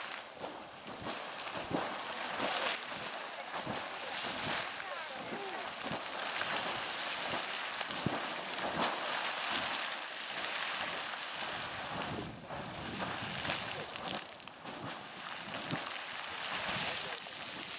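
Geyser erupting: hot water jetting and splashing back into its pool in a steady rushing hiss, with wind buffeting the microphone in low thumps.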